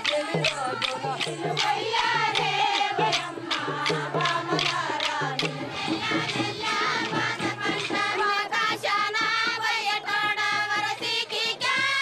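Voices singing a folk song together to a steady, quick drum beat.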